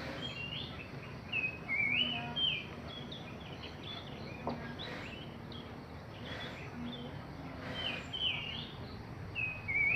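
Prenjak songbird singing: clusters of quick, sliding chirps, loudest about a second and a half to two and a half seconds in and again near the end, with scattered single notes between.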